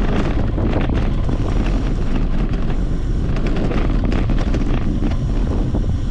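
Wind buffeting the microphone of a bike-mounted camera as a mountain bike rolls fast down a dirt singletrack, with a steady rumble from the tyres and many small rattling clicks from the bike over bumps.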